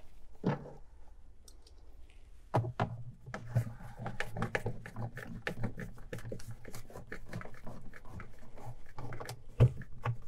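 Plastic refrigerator interior parts being handled and snapped into place by hand: a run of small clicks and knocks, thickest from about two and a half seconds in.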